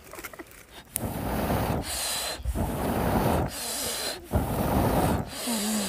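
A man blowing hard into a small wood fire under a cooking pot to revive the flames: about five long blows, each lasting about a second, with short pauses between them for breath.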